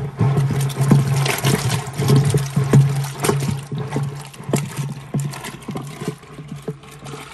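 Yogurt sloshing in a pot as it is churned with a hand-pulled wooden churn, with quick irregular knocks of the wood, growing fainter in the last second or two.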